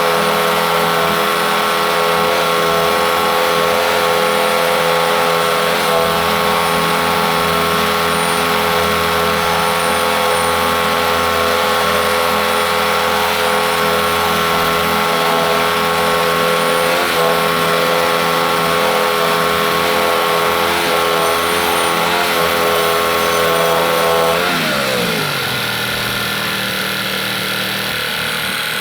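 Portable bandsaw mill's gas engine running steadily at high throttle. Near the end it is throttled back and its pitch falls to a slower, quieter idle.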